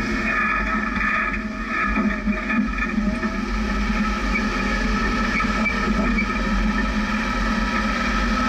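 A Jeep's engine and drivetrain running steadily while it crawls along a sandy track at low speed.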